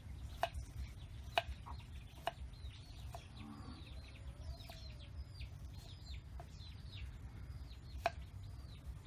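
Cleaver knife chopping ginger on a wooden chopping board, sharp knocks at uneven intervals about once a second, the loudest about eight seconds in. Chickens cluck and cheep in the background, in short falling chirps.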